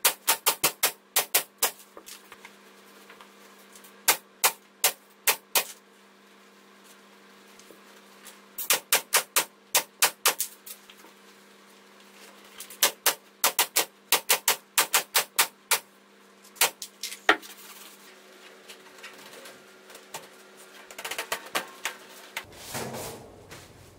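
Pneumatic upholstery staple gun firing staples through fabric into a board seat base, in quick bursts of several sharp shots about four or five a second, with pauses between bursts. Near the end a softer, noisy shuffling sound.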